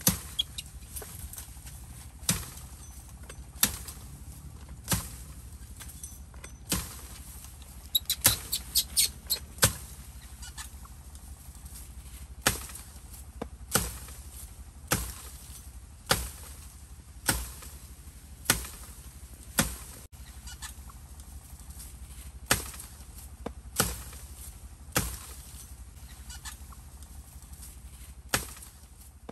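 Bamboo being chopped with a blade: sharp, single strikes at a steady pace of about one every second and a bit, with a quick run of several lighter strikes around eight to nine seconds in.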